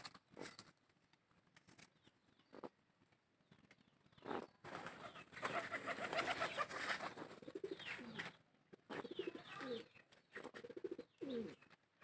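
Domestic pigeon cooing on its nest: a few low, pulsing coos in the second half, after a scratchy stretch in the middle.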